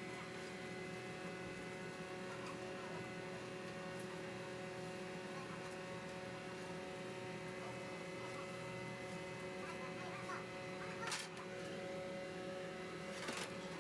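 A steady electrical hum made of several held tones over a low rumble, with two short hissy noises near the end.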